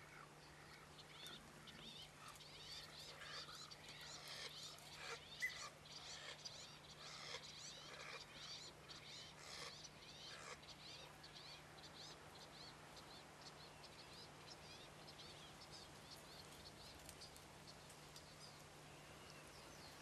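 Faint chirps and twitters of birds, thickest in the first half and thinning out after about ten seconds, over a steady low hum.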